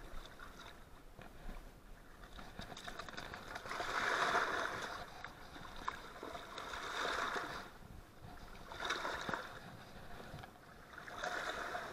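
Small waves washing in among shoreline rocks. The splashing rises and falls every two to three seconds.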